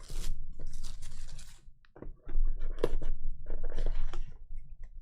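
Scratchy rustling and scraping of cardboard and plastic packaging as a trading-card hobby box is opened, in irregular bursts with a few sharper clicks and a short lull about two seconds in.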